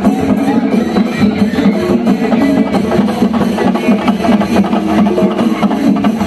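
Loud festival music with a steady beat.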